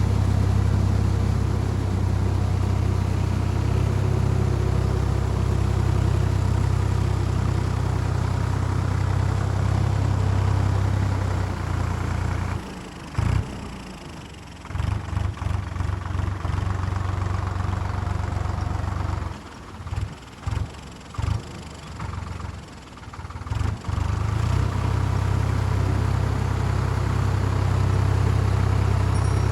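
Solis 5220 tractor's diesel engine running steadily while working a rotavator in mud. In the middle stretch the low engine sound drops away and cuts back in several times for about ten seconds before settling steady again.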